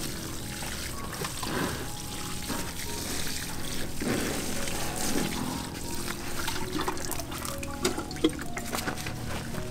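Water sprinkling from a plastic watering can's rose onto soil in sacks, a steady trickling patter.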